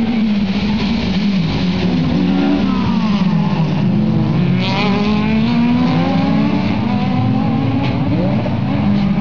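Several racing cars' engines revving past, their pitch rising and falling and overlapping as they brake and accelerate, with a short burst of higher hiss about halfway through.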